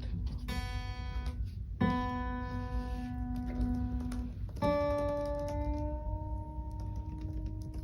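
Acoustic guitar strummed slowly: three chords, each left to ring for one to three seconds before the next.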